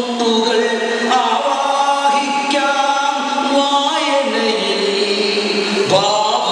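Chant-like singing with long held notes, sliding to new pitches about a second in, near four seconds and again near six seconds.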